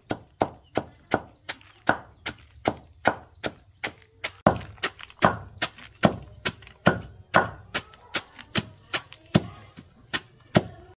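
Steady chopping: sharp strikes about three times a second, with a brief pause near the middle.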